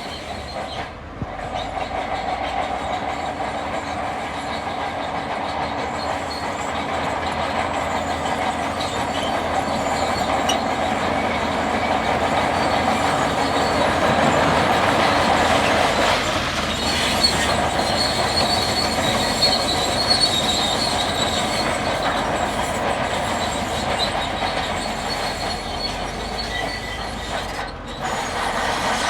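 Crawler bulldozer at work: the diesel engine running under load with the squealing and clanking of its steel tracks, growing louder about halfway through.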